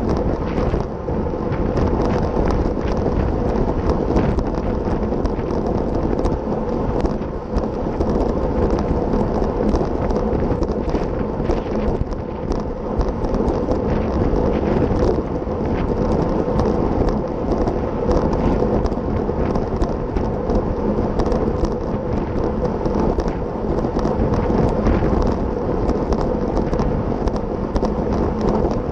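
Steady wind rumble buffeting a bicycle-mounted camera's microphone at about 25 mph, mixed with tyre and road noise.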